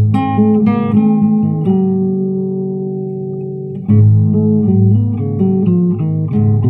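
Background music played on a plucked string instrument, guitar-like: a run of quick notes, one note left ringing for about two seconds in the middle, then more quick notes.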